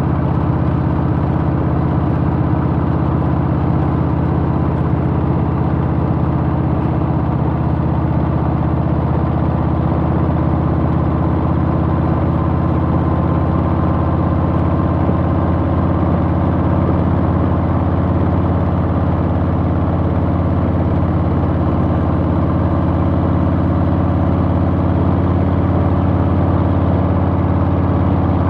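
Harley-Davidson Softail's Milwaukee-Eight V-twin engine running at a steady, even pace.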